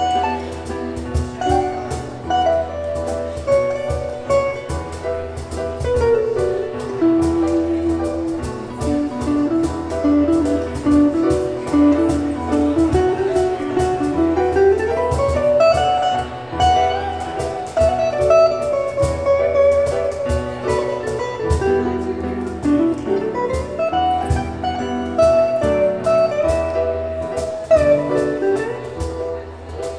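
Instrumental music: a melody that climbs and falls over a steady bass line, with quick repeated notes.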